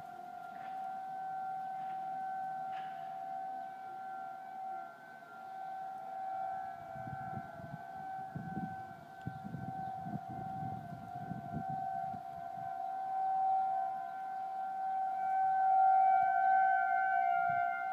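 Outdoor civil-defense warning siren sounding a steady tone during a test, holding one pitch while its loudness slowly swells and fades, loudest near the end.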